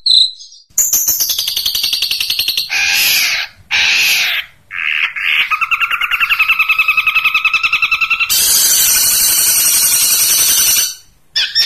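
Long-tailed shrike (cendet) calling harshly: a fast stuttering chatter, two loud rasping squawks, then a rapid trill on two pitches and another harsh run of chatter.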